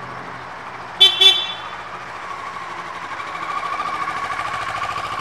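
Two short horn toots about a second in, from an Evolution Classic 4 Plus electric golf cart's horn, over steady background noise. From about halfway a steady high whine comes in and holds.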